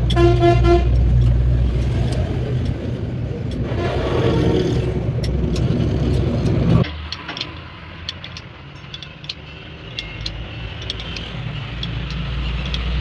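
A vehicle engine running steadily, with a short horn toot right at the start; the engine sound cuts off abruptly about seven seconds in, leaving a quieter stretch with scattered sharp clicks.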